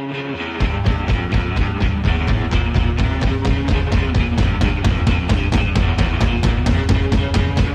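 Rock music. About half a second in the drums come in and the full band plays a fast, steady beat.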